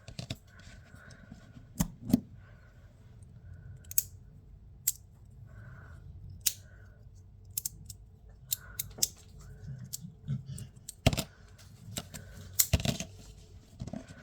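Small Glow Derby fidget toy pieces clicking and clacking as they are handled and fiddled with: irregular sharp clicks, with two louder clacks near the end.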